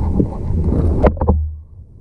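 Wind buffeting the microphone in a steady low rumble, broken about a second in by three quick sharp knocks, after which the rumble cuts off abruptly.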